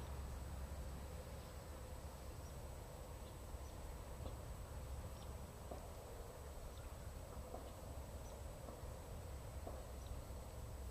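Faint outdoor background: a low rumble with short, faint chirps or ticks scattered about once a second, and a thin, steady high-pitched tone.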